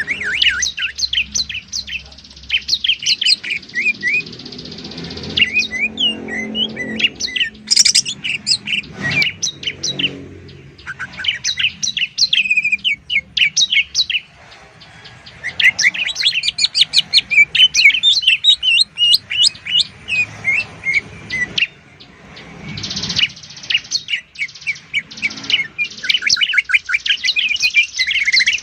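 Songbirds singing in dense runs of quick, sharp chirps and trills, from a masteran tutoring recording of greater green leafbird (cucak ijo) and bar-winged prinia (ciblek) song. The song pauses briefly about halfway through and again later.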